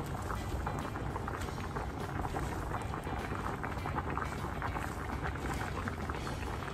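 Pot of sinigang fish broth boiling on the stove, a steady dense bubbling and crackling.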